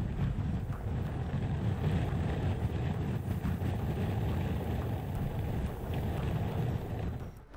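Hurricane eyewall wind, over 80 mph, howling and buffeting the microphone in a steady low rumble of gusts. It cuts off suddenly just before the end.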